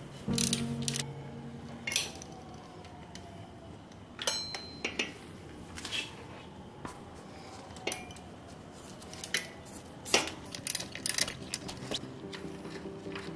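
Irregular sharp metallic clinks and knocks of a ratchet and socket against the alternator and engine as the alternator is unbolted.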